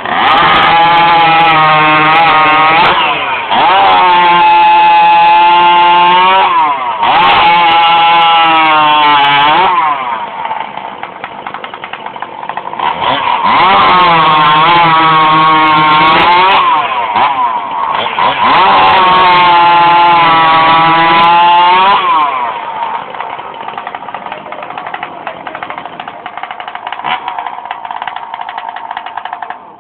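Two-stroke chainsaw fitted with a scooter sport exhaust, revved up to full speed five times for a few seconds each and dropping back between revs. It settles to a steady lower running speed for the last several seconds.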